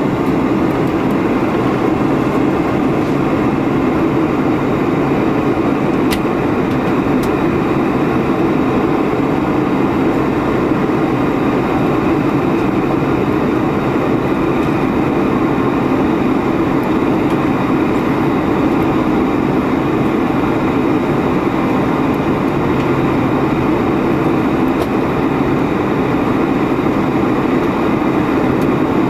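Steady cabin noise of a Boeing 747-400 airliner in flight: an even, low rush of engine and airflow noise. Two faint clicks sound about six and seven seconds in.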